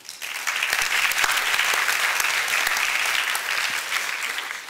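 Audience clapping: a dense spread of many hands that starts just after the opening and dies away near the end.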